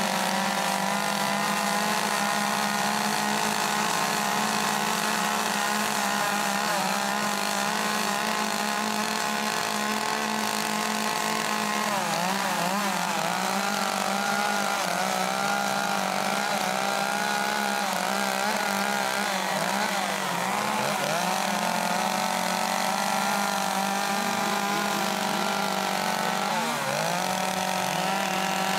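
Chainsaws with carving bars running steadily together, cutting wood. The engine pitch dips and recovers a few times as the saws load up in the cut.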